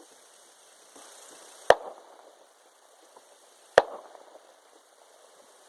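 Two unsuppressed shots from an AR-style rifle, heard from about 150 yards away, roughly two seconds apart. Each is a sharp report followed by a short echo tail.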